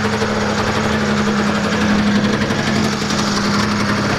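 Snowmobile engine idling steadily while it warms up.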